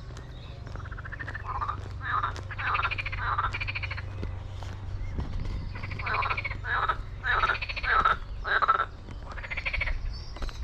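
Frogs croaking: a run of pulsed, rattling calls, each lasting under a second, coming every second or so and loudest in the second half.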